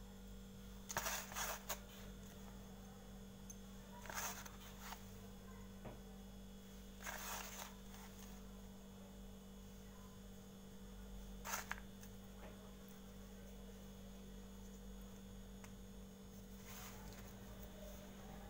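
Slate pencil pieces being handled in small clay diyas: about five short, scratchy clinks and scrapes, the first and loudest about a second in. A steady electrical hum runs underneath.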